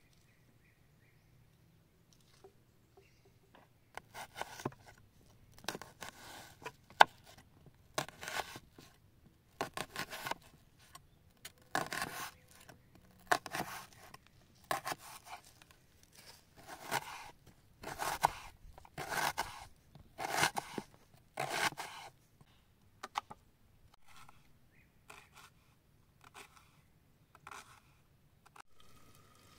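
Kitchen knife slicing through a peeled onion onto a wooden board: a crisp cut with each stroke, about one a second. It starts a few seconds in and gets fainter toward the end.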